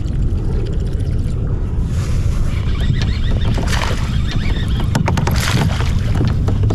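Wind buffeting the microphone over water lapping against a kayak hull, with a run of quick clicks from a baitcasting reel being worked and two short splashes in the second half.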